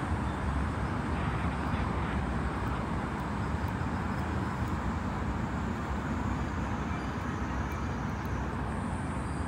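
Steady urban background noise: an even, low rumble of road traffic.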